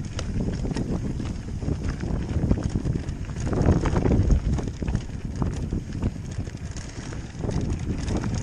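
Mountain bike rolling down a loose rocky dirt trail: tyres crunching over gravel and stones and the bike rattling, with wind rumbling on the microphone. It gets louder and rougher about four seconds in.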